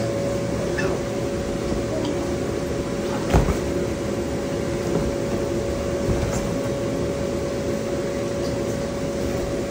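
Electric blower of an inflatable bounce house running with a steady hum. A single thump about three and a half seconds in, with a few faint clicks.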